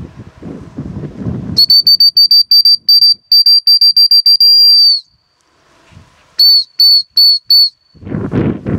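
Dog whistle with a single high pitch, blown as a rapid string of short blasts ending in one longer blast, then after a pause four more short blasts: a handler's whistle command to a working hunting dog. Wind buffets the microphone at the start and near the end.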